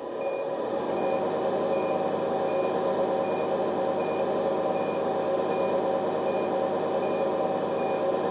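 G.T. Power sound unit in a Tamiya Scania R620 RC truck playing a simulated truck engine running steadily, which comes up in level at the start. Over it, an electronic reversing beeper sounds short, even beeps about every three-quarters of a second.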